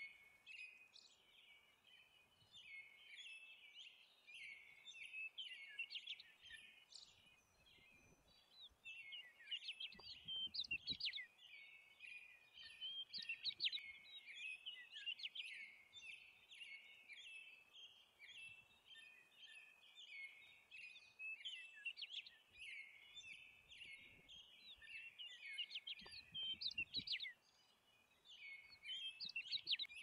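Many small birds chirping and chattering together, their calls overlapping without pause. Two brief low rumbles come up under them.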